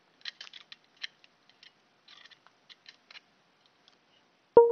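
Small clicks and scrapes of a USB cable's plug being handled and pushed into the port on a circuit board, a few light ticks a second, fading out after about three seconds. Right at the end a sudden, loud, ringing chime of several tones sets in.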